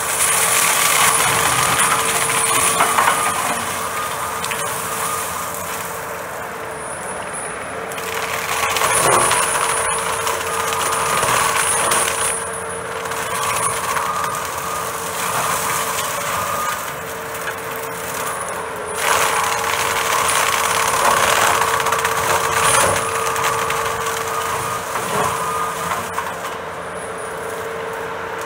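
John Deere compact track loader with a forestry mulcher head running, its spinning drum giving a steady whine while it grinds Brazilian pepper tree brush into mulch, the noise swelling and easing as it bites into the wood.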